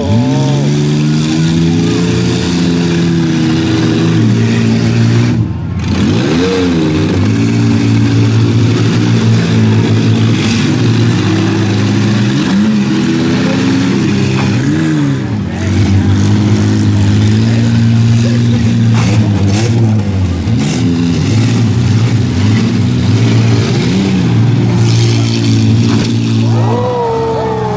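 Minivan engines in a demolition derby revving hard, their pitch rising and falling again and again as the vans accelerate and ram each other, with a few knocks of bodywork colliding.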